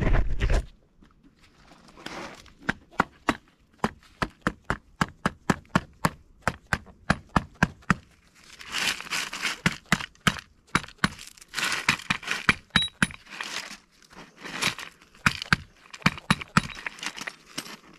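Rubber mallet knocking a lubricated Powerflex polyurethane insert into a Renault Clio 200 engine mount. The blows are short and sharp, about two or three a second, and come in runs with brief pauses, driving the insert home into the mount housing.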